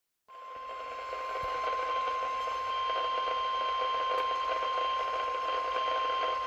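Emergency Alert System attention signal: the single steady alarm tone of NOAA Weather Radio, starting a moment in and holding steady over a faint radio hiss. It announces a warning, here a severe thunderstorm warning.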